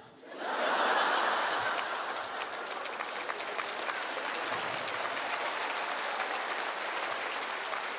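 Large theatre audience laughing and applauding: the crowd noise swells about half a second in, then settles into steady clapping.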